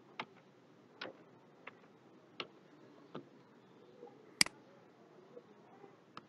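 Computer keyboard keys tapped one at a time, five slow single keystrokes, then a louder, sharper mouse click about four and a half seconds in.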